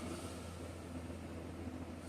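Steady low hum with faint hiss in the pause between a sleeper's snores; no snore sounds here.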